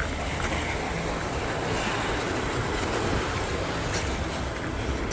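Wind rushing and buffeting over the microphone as a steady, dense noise.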